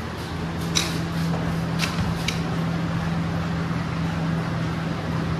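Steady machine hum with a low, even drone, and a few light clicks as a dog eats from a steel bowl.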